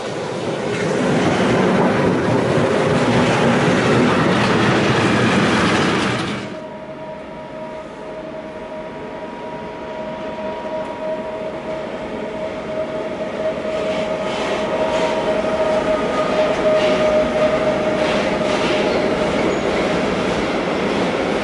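Electric freight trains passing. For the first six seconds a Green Cargo Rc-class electric locomotive and its wagons rush past loudly. The sound then drops abruptly, and a second Rc locomotive hauling freight wagons rolls through with a steady high whine and faint clickety-clack of wheels over rail joints.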